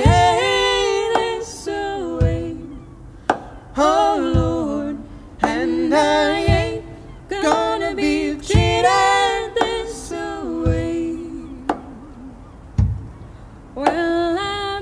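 Male and female voices singing a slow traditional folk song in harmony, over an upright bass plucked about once every two seconds. A short sharp click falls midway between each pair of bass notes.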